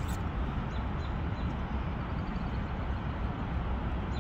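Steady outdoor rumble, heaviest in the bass, with a few faint high ticks now and then.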